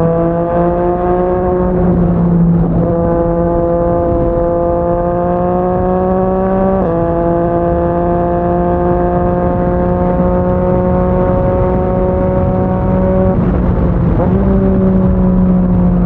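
Yamaha MT-09's three-cylinder engine through a Yoshimura R55 slip-on exhaust, pulling under way: the engine note climbs slowly in each gear and drops sharply as it shifts up, about three and about seven seconds in. Near the end the note breaks briefly and comes back lower, falling.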